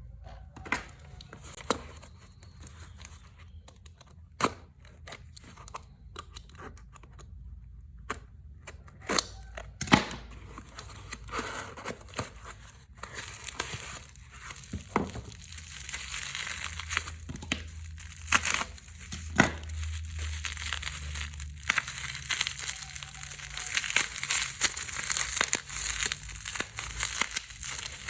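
Plastic packaging of an acrylic stand being handled and opened: scattered taps and clicks at first, then crinkling and tearing that grows denser and louder through the second half.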